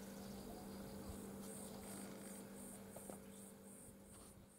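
Faint, high-pitched insect chirping repeating about three times a second, over a steady low hum; both fade away near the end.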